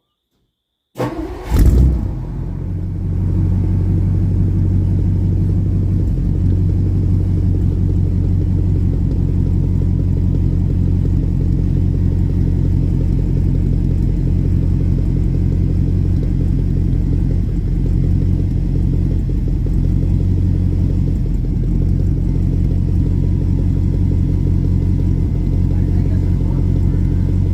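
Ford vehicle's engine starting about a second in, flaring up briefly, then running steadily with a low rumble.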